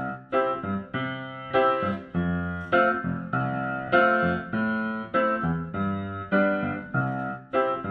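Intro music: a keyboard playing a run of sustained chords, a new chord struck about every half second, with no drums.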